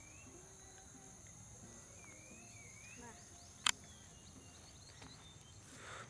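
Faint outdoor ambience of steady high-pitched insect trilling, with a few faint wavering calls and a single sharp click about three and a half seconds in.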